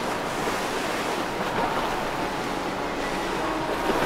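Steady rush of wind and water, with waves washing.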